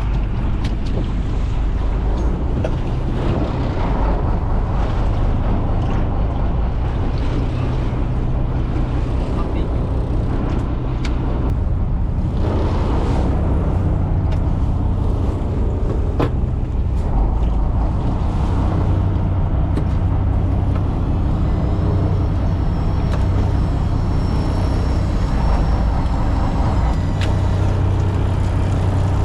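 Fishing boat's engine running steadily, a constant low hum, with scattered light knocks and clicks.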